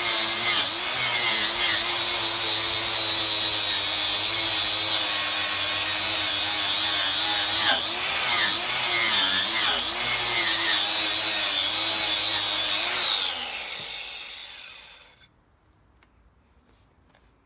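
Motor-driven twisted-knot wire brush scouring a rusty, pitted steel chainsaw guide bar: a steady motor hum under a loud scratching hiss, its pitch dipping as the bar is pressed in. About thirteen seconds in the motor is switched off and spins down.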